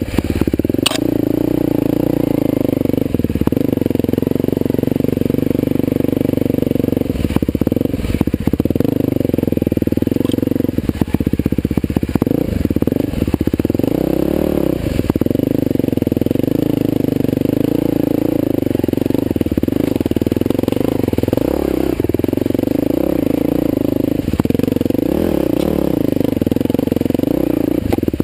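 Husqvarna TE511 single-cylinder four-stroke dirt bike engine running under constantly changing throttle, its pitch rising and falling as it climbs rough single-track. Occasional sharp knocks and clatter come from the bike working over the rocky trail.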